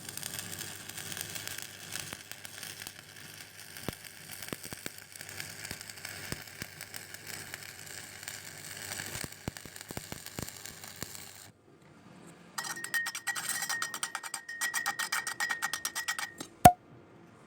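Stick-welding arc crackling and sizzling steadily for about eleven seconds, then cutting off. About a second later comes a rapid rhythmic rattle over a steady high whine for some four seconds, followed by a single sharp click, the loudest sound.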